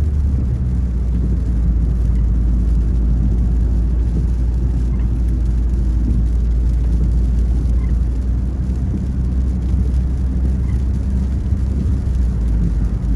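Steady low rumble of a car in motion, heard from inside the cabin: engine and road drone.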